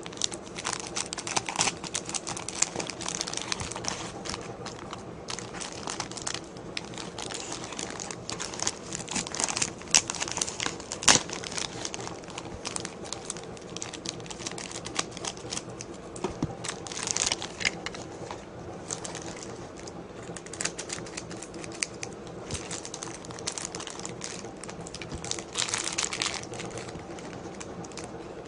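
Plastic packaging being crinkled and torn open by hand to free a Beyblade launcher, a steady jumble of crackles and rustles with a few sharp clicks about ten seconds in.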